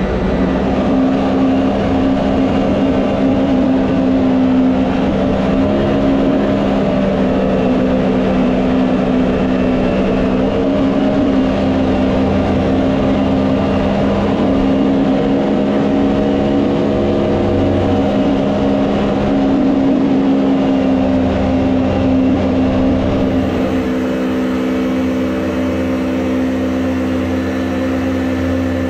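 Small jet boat's engine running hard at a steady high throttle under the heavy load of towing two boats, with rushing river water. Near the end the sound shifts, with less low rumble and more hiss.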